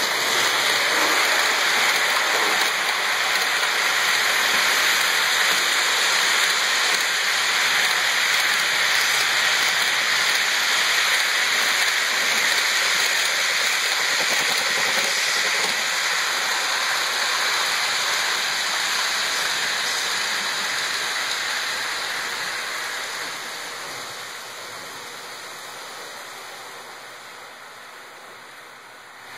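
HO-scale model freight train rolling along the layout track: a steady rushing of many wheels on the rails, which fades away over the last several seconds as the train moves off.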